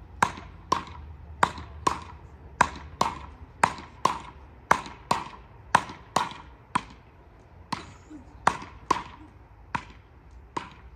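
Beach paddle rackets (ρακέτες) in a fast rally: the ball is struck back and forth, making sharp pocks about twice a second, each with a short ring.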